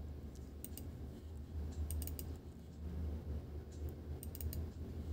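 Computer mouse clicking in quick pairs and small groups, the double-clicks of opening folders in a file dialog, over a steady low hum.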